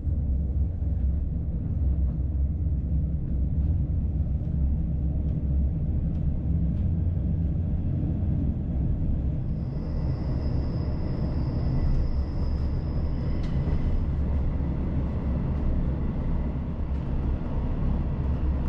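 On-board running noise of a four-wheeled Czech railcar trailer on the move behind a Class 811 diesel railcar: a steady low rumble of wheels on track and the diesel, very noisy, with a few light clicks. A thin high whine joins about halfway through and lasts about four seconds.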